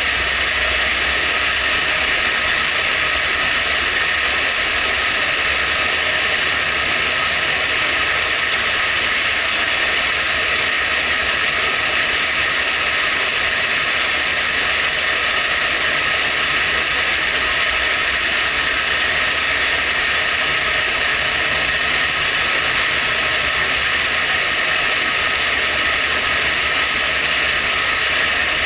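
Knee mill running with its cutter taking a light cut around a hole in a tooling plate, a steady, unchanging machining noise with several high steady tones.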